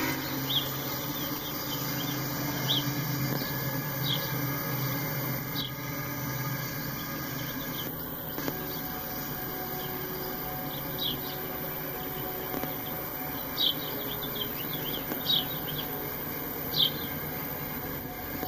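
Freight cars rolling past over a grade crossing: a steady rumble of wheels on rails, with short high chirps now and then.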